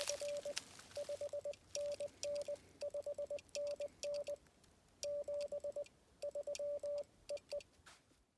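Morse code (CW) sidetone from a portable QRP transceiver, a steady mid-pitched beep keyed into dots and dashes while a CQ call is sent, with faint clicks alongside.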